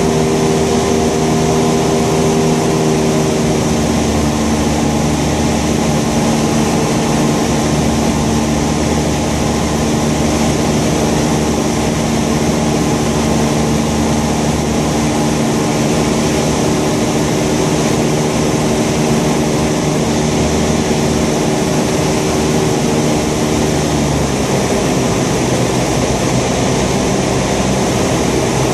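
Thruster T600N microlight's two-stroke engine and propeller droning steadily in flight, with wind rushing over the microphone. Near the end the engine note drops lower as power is reduced on the approach to land.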